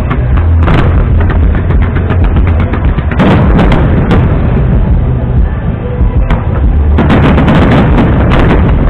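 Aerial fireworks going off in quick succession: a continuous heavy rumble of booms with many sharp crackles and pops layered over it, thickest about three seconds in and again near the end.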